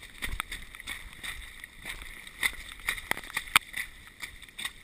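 Running footsteps splashing and squelching through mud and running water on a rain-soaked dirt trail: a quick, uneven series of sharp splats, the loudest about three and a half seconds in.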